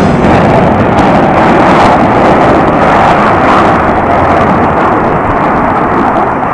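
Loud, steady jet noise of F/A-18 Hornets flying by, easing slightly near the end.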